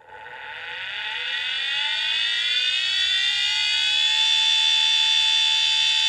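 Hard drive spindle motor spinning the bare platter up. A loud whine rises in pitch over the first few seconds, then holds steady at full speed.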